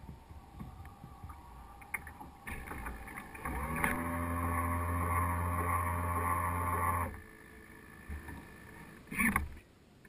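A radio-controlled yacht's sail winch servo whining inside the hull for about three and a half seconds as it works the sail sheets, starting with a quick rise in pitch, then holding steady before cutting off. Water lapping at the hull around it, with a brief loud slap near the end.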